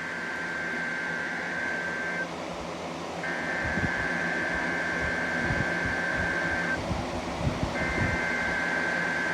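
Emergency Alert System SAME header from a NOAA Weather Radio: three bursts of two-tone digital data signalling separated by pauses of about a second, over steady radio hiss. A few low knocks come in the middle.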